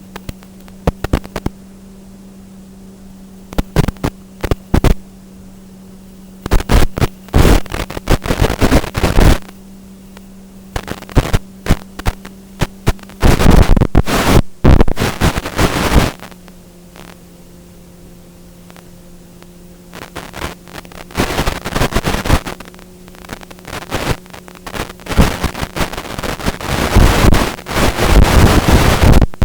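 Strong wind gusting onto the microphone in irregular, very loud rumbling blasts, heaviest near the end, over a steady low hum.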